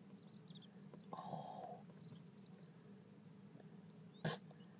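Button quail chicks giving faint, very high, short peeps in a few quick clusters. A single sharp click, the loudest sound, comes near the end.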